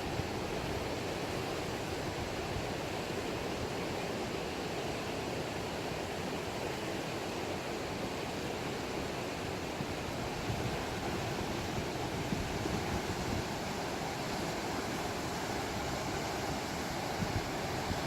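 River water rushing, an even, steady sound.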